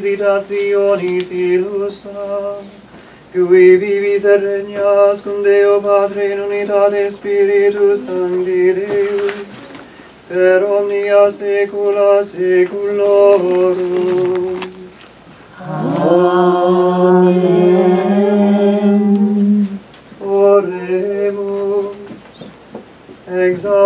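Latin plainchant sung by a male voice, mostly on one steady reciting note in phrases broken by short pauses, with a longer held passage sliding upward about sixteen seconds in.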